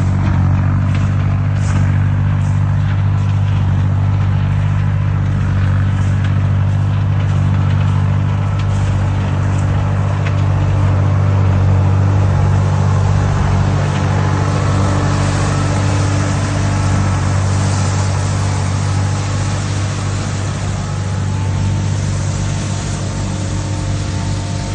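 Tractor engine running steadily under load as a tractor-mounted branch sweeper works, with a rushing, brushing noise over the engine and a few faint clicks.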